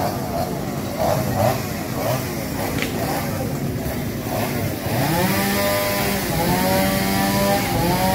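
Two-stroke chainsaw running, its speed rising and falling unevenly, then revved up about five seconds in and held at high speed with two brief dips, as when cutting through a fallen tree trunk.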